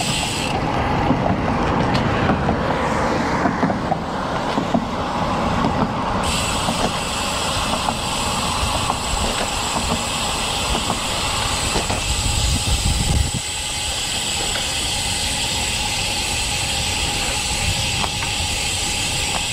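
Wind rushing over the camera microphone and the tyres of a road bike rolling on a concrete street, a steady rumble and hiss with a few faint clicks. The high hiss thins for a few seconds near the start.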